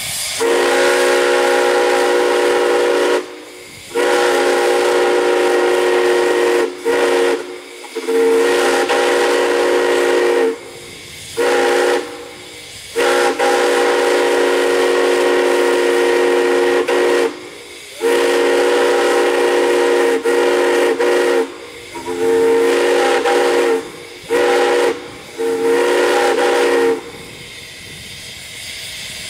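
Multi-note steam chime whistle blown in a long run of blasts of varying length, from about half a second to about four seconds, with short breaks between them. Steam hisses in the gaps.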